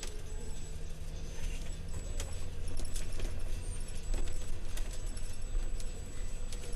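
Cabin sound of a moving Modasa Zeus coach bus: a steady low engine and road drone with scattered sharp clicks and rattles from the bus body and fittings.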